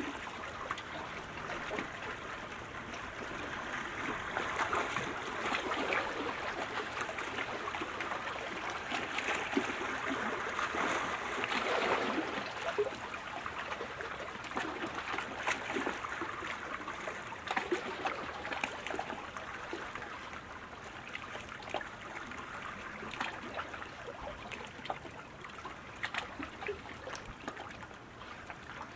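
Water lapping and trickling: a steady wash dotted with many small splashes and drips, easing off slightly in the last few seconds.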